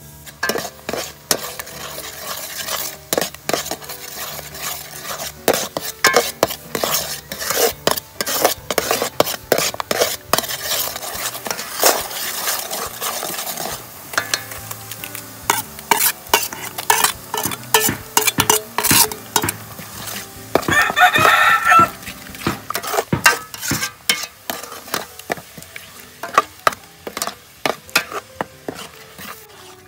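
Food being stirred in a sizzling pan, the utensil clicking and scraping against it again and again. A rooster crows once, about two-thirds of the way through.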